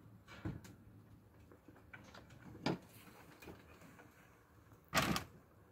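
Kittens moving about on wooden decking and enclosure fittings: a few scattered light knocks and scuffs, with a louder short clatter about five seconds in.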